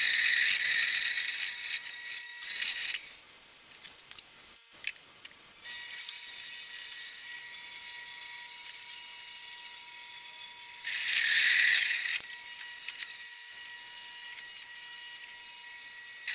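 Horizontal metal-cutting band saw running and cutting through a steel round bar: a steady motor hum with a hissing, grinding cut. It drops away about three seconds in and picks up again a couple of seconds later, with a louder cutting stretch near the two-thirds mark.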